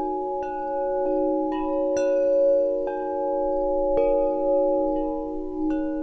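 Chime notes struck one at a time, about every half second to a second, each ringing on over a bed of steady, sustained ringing tones.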